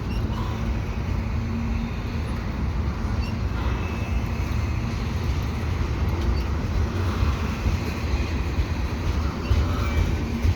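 A slow-moving freight train's cars rolling past, a steady low rumble with a few faint clicks from the wheels and couplings.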